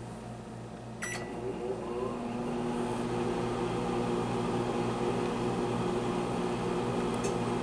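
Microwave oven starting up and running: a click about a second in, then a steady hum that builds over a couple of seconds and holds, as the fish curry cooks for its second five minutes.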